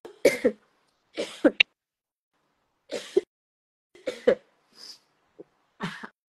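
A woman coughing and clearing her throat in about seven short, irregular bursts, heard through a recorded phone voice clip.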